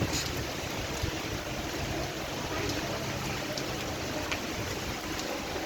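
Heavy rain falling steadily, a constant hiss with a few sharp clicks of drops landing.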